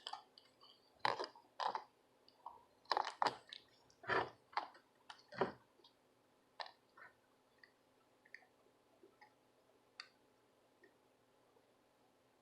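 Small clicks and taps of hand tools being handled while desoldering a circuit board, a quick run of them in the first six seconds and then a few sparse ticks.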